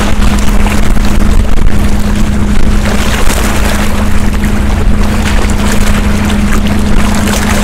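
Wind rumbling on the microphone and small waves washing and splashing against the shore rocks, over a steady low hum.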